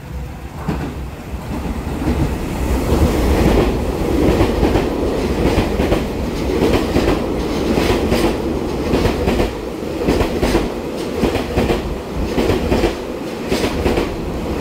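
Taiwan Railway EMU3000 electric express train passing through the station at speed. Its rumble builds over the first few seconds as it arrives, then holds steady with repeated wheel clacks as the twelve cars run by.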